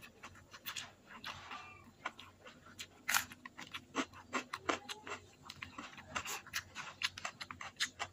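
Close-up mouth sounds of a person chewing a mouthful of rice and stir-fried water spinach: many sharp, wet clicks and smacks in an irregular run, several a second.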